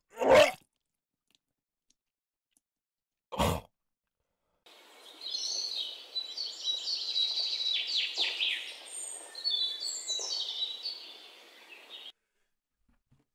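Birds chirping over a steady hiss of outdoor ambience, coming in about five seconds in and cutting off abruptly some seven seconds later.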